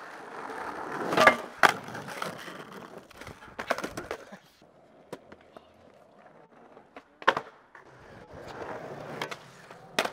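Skateboard wheels rolling on rough street asphalt, broken by sharp clacks of the board popping and landing: two loud ones close together about a second in, then single clacks later on.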